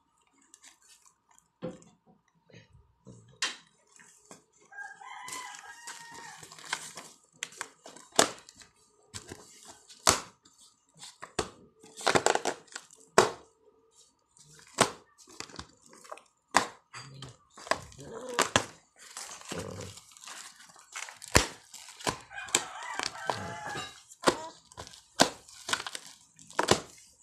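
Thin clear plastic bag crinkling and crackling in irregular sharp snaps as a toddler squeezes and handles it. Twice, about five and twenty-two seconds in, a drawn-out pitched call sounds over it.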